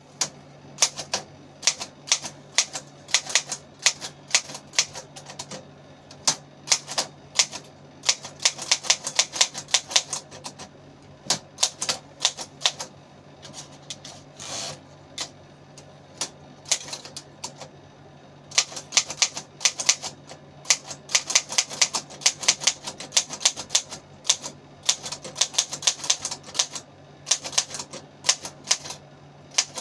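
Vintage Remington manual typewriter being typed on: sharp key strikes in fast runs, with a sparser stretch near the middle.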